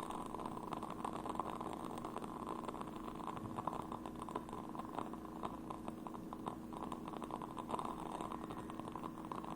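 Burning candles crackling, with many small irregular clicks over a steady low hum.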